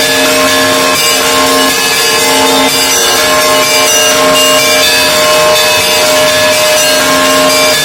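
Russian Orthodox monastery bells ringing: many small bells struck in quick succession over the sustained hum of the larger bells.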